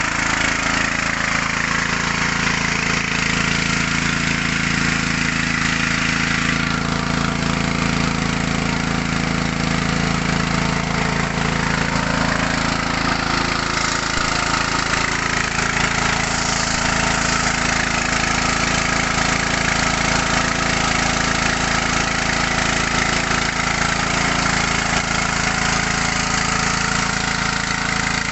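Small 6.5–7 hp petrol engine running steadily, driving a mini rice huller and polisher machine.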